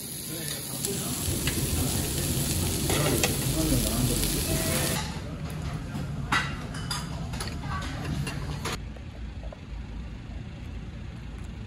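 Slices of pork belly sizzling on a tabletop grill, a steady hiss. About five seconds in it gives way to a few light clinks of a metal spoon in a pot of scorched-rice soup. Near the end there is a low street background rumble.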